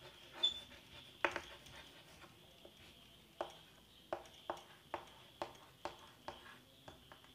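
Faint, irregular clicks and taps, about ten spread over the few seconds, over a faint steady high-pitched hum.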